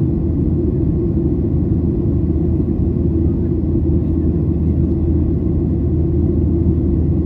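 Steady cabin noise of a Boeing 737-700 in flight: a constant low rumble of the jet engines and rushing air, unchanging throughout.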